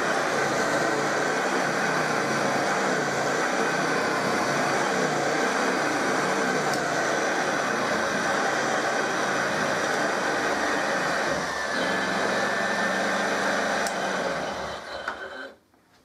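1930 Hoover Model 750 upright vacuum cleaner running steadily on its faster speed of the original two-speed switch. Near the end it is switched off and quickly runs down to quiet.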